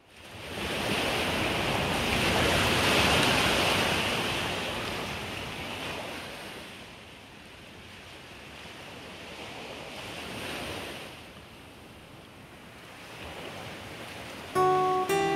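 Ocean surf: waves washing in and drawing back in slow swells, loudest in the first few seconds. Near the end, plucked musical notes begin.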